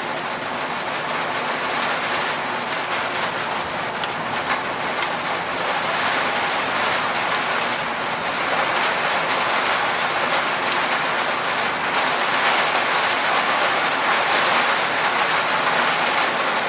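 Rain falling on an aluminum roof: a dense, steady patter of countless drop impacts that grows gradually louder.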